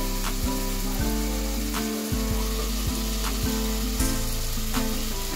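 Chopped red onions and green chillies sizzling in hot oil in a metal pot, with background music with a steady beat playing over it.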